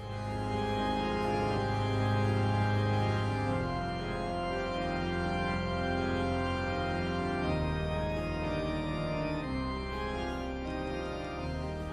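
Background music: a slow organ piece of held chords over a deep bass note, changing chord every two to four seconds.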